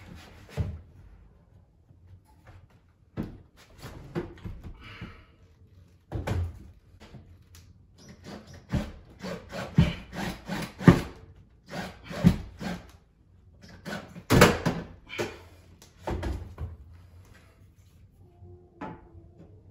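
Irregular knocks, clunks and rubbing from a stainless steel range hood being pushed and shifted by hand on its wall mounting bolts to bring one side up level, busiest in the middle.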